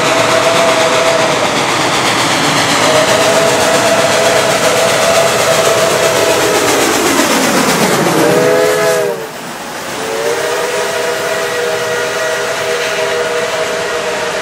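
Reading & Northern 425, a 4-6-2 steam locomotive, blowing its chime whistle in several blasts as it passes at close range, over a steady hiss of steam. The whistle and hiss dip in pitch as the engine goes by about 9 seconds in, the sound drops a little, and the whistle sounds again as the coaches roll past.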